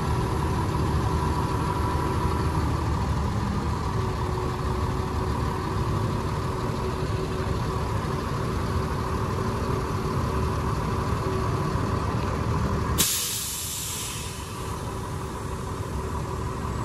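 Truck engine idling steadily; about three-quarters of the way through, a sudden sharp hiss of an air brake being released fades over about a second, and the engine rumble is quieter after it.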